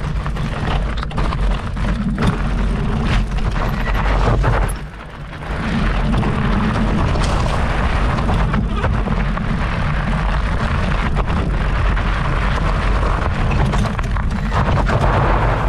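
The Hiboy P6 e-bike's 4-inch fat tyres rolling fast over loose gravel, heard from a camera mounted by the rear wheel: a heavy low wind rumble over a steady crunching hiss, with scattered clicks of stones. The noise drops away briefly about five seconds in.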